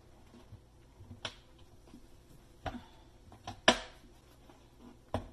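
Scattered light clicks and knocks of plastic parts being handled and fitted into the base of a dishwasher tub, about five in all, the sharpest one a little before four seconds in.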